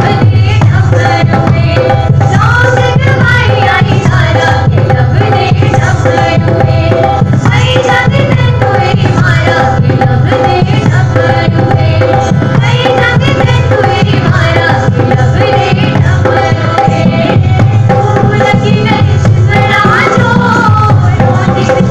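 Indian folk dance song playing loudly: a voice singing over a steady hand-drum beat and sustained melody notes, without a break.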